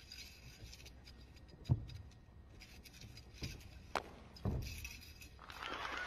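Dull thuds of a wushu spear athlete's feet stamping and landing on the competition carpet, a few separate impacts, with a sharp crack about four seconds in. A steady rush of noise comes up near the end.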